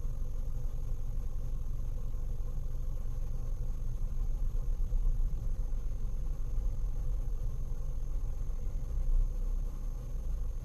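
Steady low rumble inside a car cabin.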